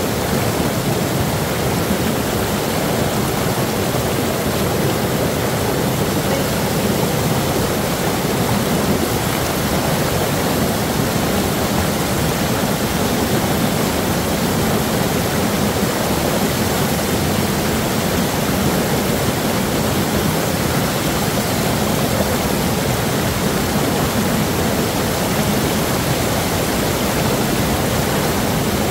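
Steady loud rush of river water pouring and splashing over boulders in a small cascade, right at the microphone.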